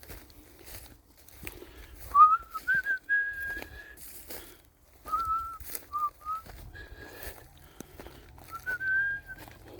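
A person whistling a slow tune in a few short phrases with sliding notes, over regular footsteps crunching on dry forest floor.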